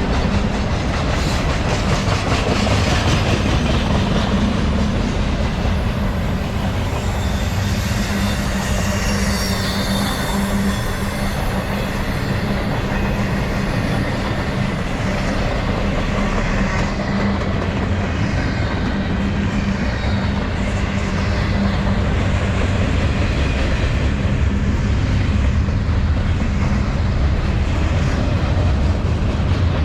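Norfolk Southern freight train rolling past, loud and steady throughout, with high-pitched wheel squeals sliding in pitch through the middle stretch.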